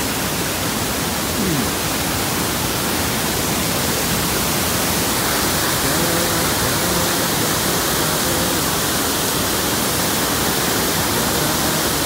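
Seasonal waterfall in heavy flow, water pouring over a broad rock ledge in a steady rush of white noise.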